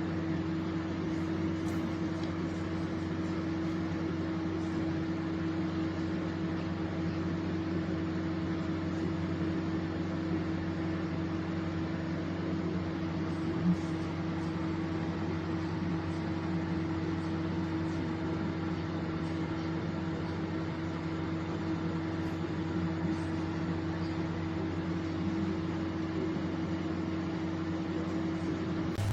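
Microwave oven running: a steady electrical hum over fan noise, with one brief click about halfway through.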